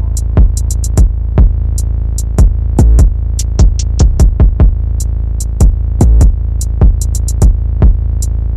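Electronic background music: a drum-machine beat of low kick hits and short high ticks over a sustained deep bass.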